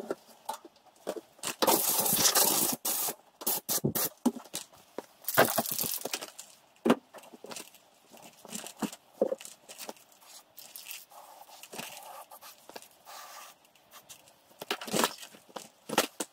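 Rustling and scraping of a large cloth towel being handled and draped over a car's front wheel, in irregular bursts with a few sharp knocks.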